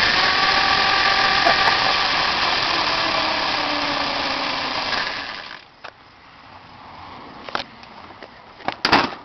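Electric motorcycle's motor and chain drive running with the bike on its side and the rear wheel off the ground, a loud whirring whose pitch slowly falls, then cutting off sharply about five and a half seconds in. A few short knocks follow near the end.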